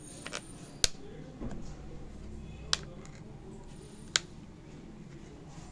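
Sharp clicks, three of them a second or two apart, as a thin metal pry tool works along the seam of an ADATA HD330 portable hard drive's plastic case to open it.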